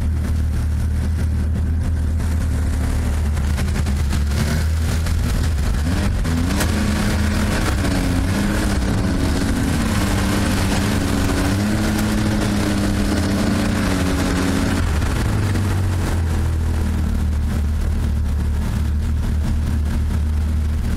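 2017 Arctic Cat CrossCountry 9000 Turbo snowmobile's turbocharged four-stroke triple idling steadily. From about four seconds in until about fifteen, a second engine is heard rising and falling in pitch.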